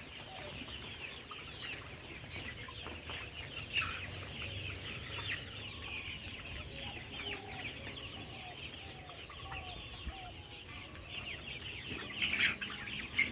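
A shed of young layer pullets, about 47 days old, calling continuously: many overlapping short, high peeps and chirps. In the middle, one bird gives a run of about ten lower calls, roughly two a second.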